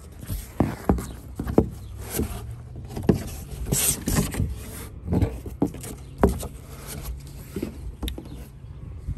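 Cardboard shipping box and its foam-wrapped parts being handled: irregular knocks and taps of cardboard with rustling of plastic and foam wrap. A steady low hum runs underneath.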